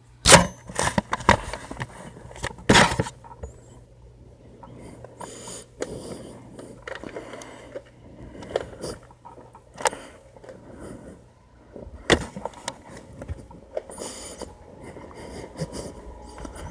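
Handling noise: a few sharp knocks in the first three seconds, then scattered quieter clicks, scrapes and rustling.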